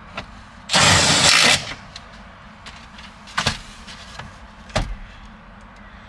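Work noises as the steering column cover is screwed back on: a loud rushing burst lasting under a second about a second in, then two sharp knocks a little over a second apart.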